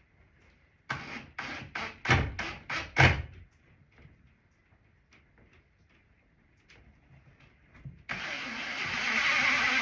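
A quick series of about seven short rasping strokes, then, about eight seconds in, a motor starts and runs steadily with a broad whirring noise.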